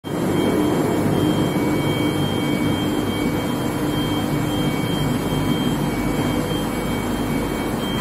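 Steady machinery noise from a running steel bar induction heat treatment line: a continuous hum and rumble with a thin high-pitched whine on top that drops out now and then.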